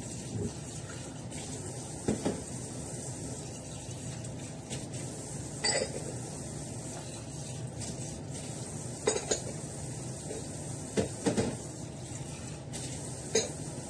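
Kitchen clatter: scattered sharp clinks and knocks of dishes and utensils being handled, some ringing briefly, a few seconds apart over a steady low background hum.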